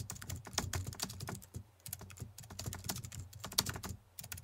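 Computer keyboard typing: quick, irregular clicks several times a second, with a short lull about a second and a half in.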